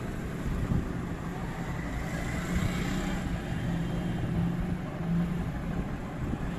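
Steady low hum over background noise, with a light knock about a second in.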